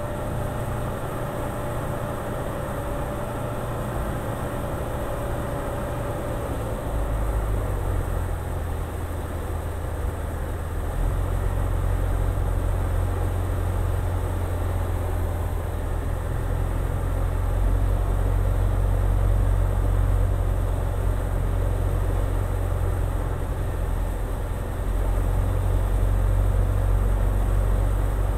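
Steady cabin noise of a light aircraft on final approach: engine drone and airflow, with a low rumble that grows stronger about seven seconds in. A faint steady whine fades out shortly before that.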